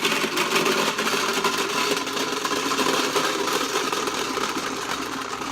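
Electric coin counting machine running steadily with a dense, fast rattle of quarters feeding through it; it stops abruptly.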